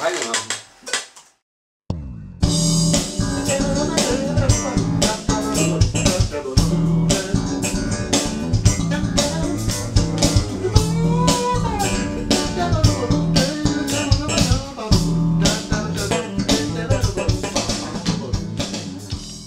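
A funk-jazz band plays: electric baglama, bass guitar and drum kit. They come in together about two seconds in, after a brief gap, and stop near the end.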